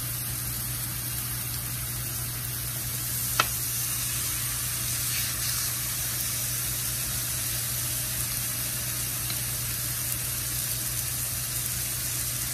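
Raw marinated pork chops sizzling on a hot griddle as they are laid on it season side down with tongs. There is one sharp click about three and a half seconds in, and the sizzle is a little louder after it.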